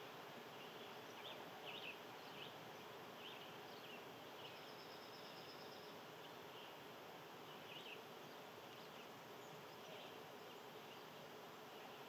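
Faint outdoor ambience: a steady hiss with scattered soft, short high chirps and a brief high pulsed trill about four and a half seconds in.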